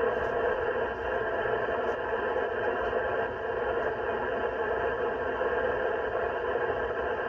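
HF receiver hissing with steady static and faint continuous tones through its speaker: radio-frequency interference from a Renogy Rover 40 A MPPT solar charge controller running under charge current.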